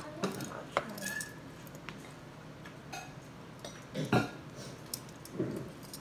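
Metal handcuffs clinking in scattered light clicks as cuffed hands move, with a short, louder low vocal sound about four seconds in.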